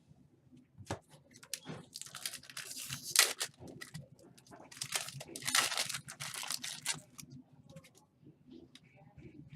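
Foil wrapper of a football trading-card pack being torn open and crinkled, in two bursts of ripping noise, the second starting about a second and a half after the first ends.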